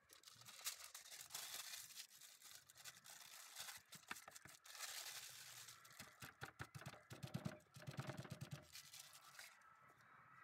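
A sheet of paper being crumpled and crinkled by hand, with irregular crackling and rustling that stops shortly before the end.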